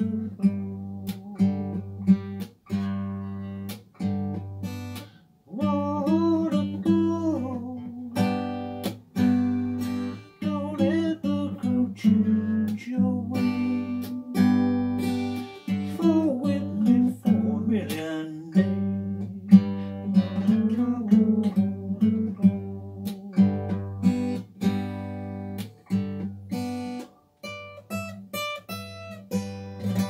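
Acoustic guitar strummed in a steady rhythm, with a man singing in phrases over it.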